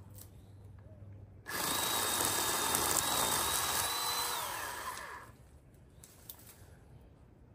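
Cordless electric pole saw motor starting suddenly about a second and a half in and running with a steady high whine for about three seconds, then dropping in pitch as it winds down and stops.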